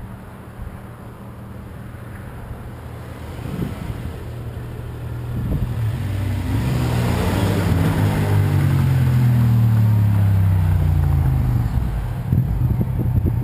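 A motor vehicle driving past: its engine grows louder over several seconds, stays loud for a few seconds, and falls steadily in pitch as it goes by.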